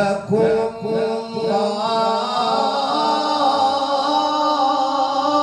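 A man reciting the Quran in the melodic, drawn-out mujawwad style: a few short sung notes, then one long note held steady on a single pitch.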